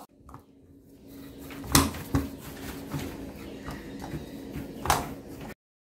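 Rice-flour dough being mixed and pressed by hand in an aluminium pan, with three sharp knocks of the pan over a faint steady hum. The sound cuts off suddenly near the end.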